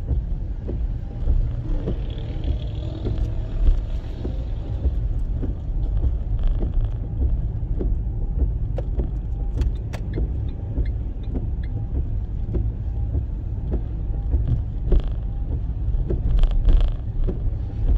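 Steady low rumble of a car's engine and tyres on a rain-soaked road, heard from inside the moving car, with occasional light clicks.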